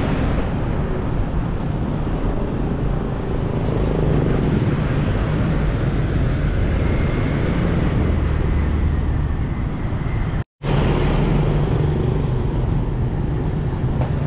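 Busy road traffic passing close by: cars and a bus running in slow, heavy traffic, a steady mix of engine rumble and tyre noise. The sound cuts out for a split second about ten and a half seconds in.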